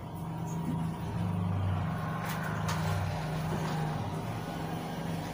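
A motorcycle engine running as it rides past, a steady low drone that grows louder about a second in.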